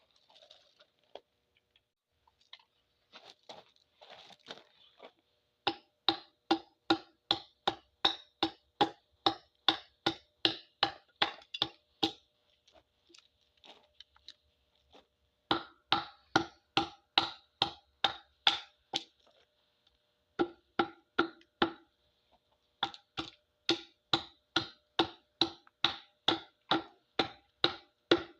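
A hatchet chopping into a cedar log at about three strokes a second, in runs with short pauses between them. Each blow is a sharp, woody knock.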